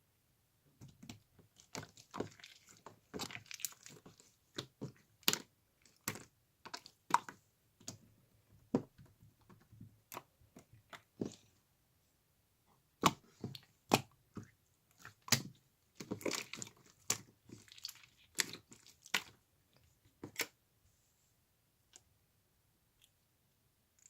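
A close, irregular run of sharp crunches and clicks, dense for most of the time and thinning to a few faint ticks near the end.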